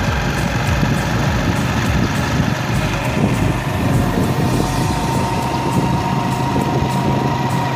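Motorcycle engine running steadily while riding through city traffic, with wind and road rumble on the microphone. A steady higher tone joins about two-thirds of the way in.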